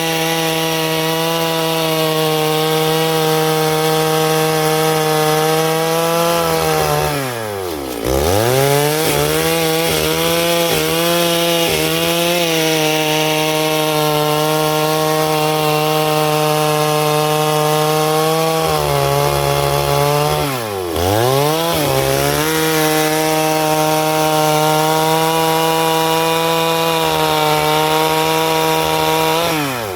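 Stihl 651 two-stroke chainsaw running at full throttle while cutting wood, its engine note steady under load. Twice the throttle is let off briefly, the pitch falling sharply and climbing back as the saw goes back into the cut.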